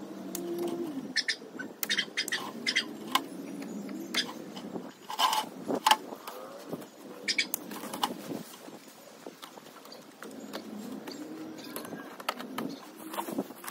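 Leafy branches and dry brush rustling, with twigs snapping and crackling in many sharp, irregular snaps, as cut shrub and vine growth is pulled and gathered by hand.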